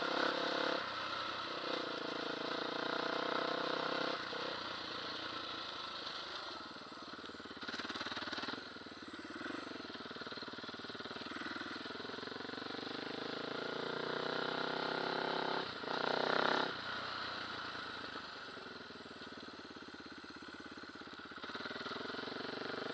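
Dirt bike engine running under way, its pitch rising and falling as the throttle opens and closes, with two brief louder rushes of noise about a third and two-thirds of the way through.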